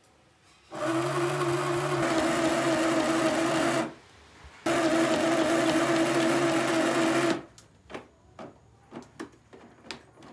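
Small portable electric sewing machine running in two steady stretches of about three seconds each, with a brief stop between, stitching through a thick cotton-stuffed fabric mattress. After it stops, a few soft clicks and rustles of the fabric being handled.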